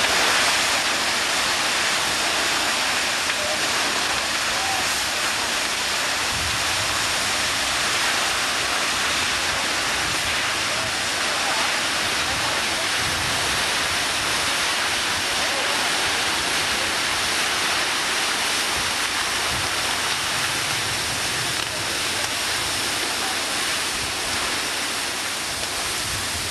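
Fire hose spraying water onto a burning fire: a steady, loud rushing hiss.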